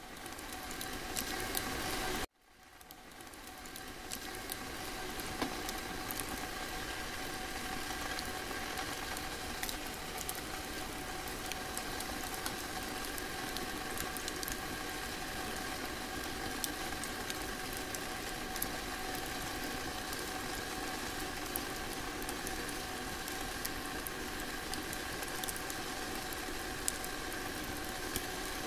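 A steady mechanical hum carrying a few faint steady tones, with scattered faint clicks over it. It cuts out briefly about two seconds in, then fades back in.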